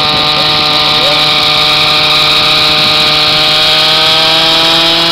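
Glow (nitro) engine of a radio-controlled helicopter running with the main and tail rotors spinning, its whining note climbing slowly and steadily as the engine speeds up.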